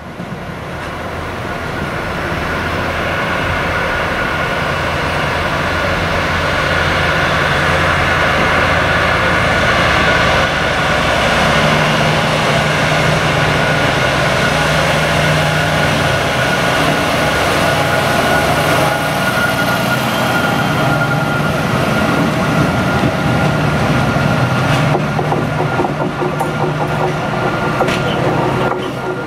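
Diesel train running through a station: a steady engine drone that builds up over the first couple of seconds, with a steady high-pitched tone above it.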